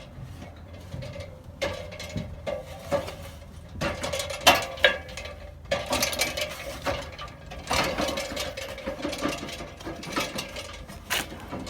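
Machinery running with a steady whine that starts and stops several times, over clanks, clicks and rattles.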